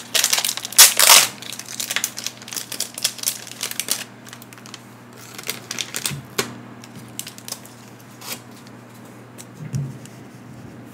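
Crinkly plastic wrapping being handled, with dense crackling for the first few seconds and then scattered crackles and clicks.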